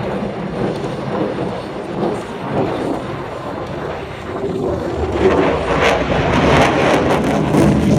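Jet noise from an F-22 Raptor's twin Pratt & Whitney F119 afterburning turbofans, a heavy rumble that swells louder about five seconds in, with a crackling edge near the end.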